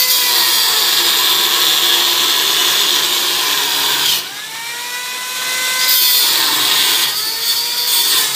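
Angle grinder cutting through the bars of a metal window grille: a loud grinding hiss over the motor's whine. About halfway through the grinding eases for a couple of seconds as the disc comes off the metal and the motor whine rises, then the disc bites in again.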